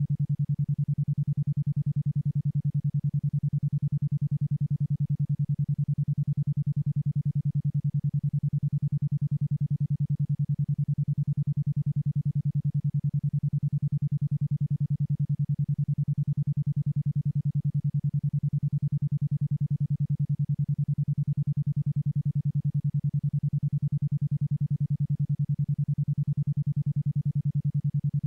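Isochronic tone: a single low, steady synthetic tone pulsing on and off about ten times a second, a 10.2 Hz alpha-wave pulse rate.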